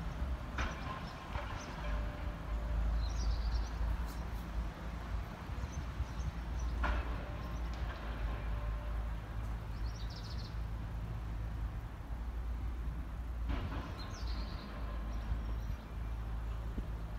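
Caterpillar 775E haul truck's V12 diesel engine idling, a steady low rumble. Three times, about six to seven seconds apart, a rush of noise starts suddenly and fades.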